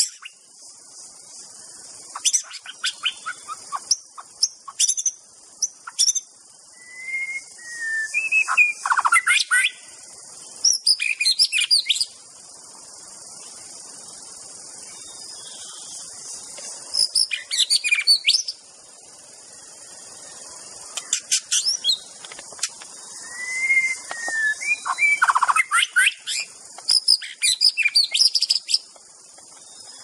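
White-rumped shama singing: phrases of varied rich whistles, slurred notes and quick rattling runs come every few seconds, with short gaps between them. A steady high-pitched hiss runs underneath.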